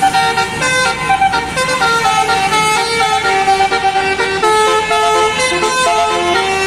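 A bus's musical 'telolet basuri' air horns play a quick tune of changing notes, with a bus engine running low underneath.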